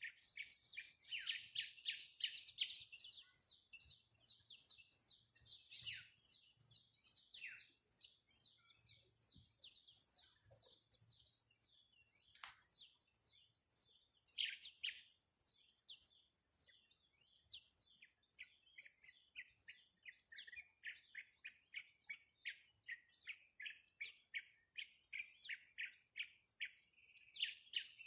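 Birds chirping in quick succession: a dense, unbroken run of short high notes, several a second.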